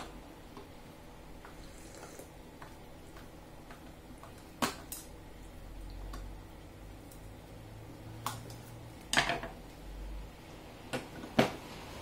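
A handful of sharp clicks and knocks from a screwdriver and the plastic housing of a hair dryer being worked on and then set down on a table, the loudest near the end.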